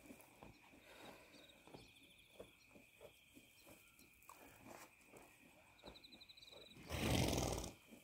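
A horse snorts once near the end, a loud breathy blow through the nostrils lasting under a second. Faint small clicks and shuffles come before it.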